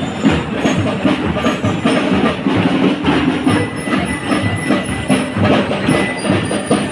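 Marching band playing on the street, with drums beating a busy, steady rhythm under sustained instrument tones.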